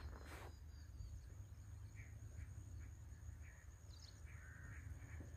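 Faint outdoor ambience: a low wind rumble on the microphone with a few scattered faint bird calls, after a brief burst of noise right at the start.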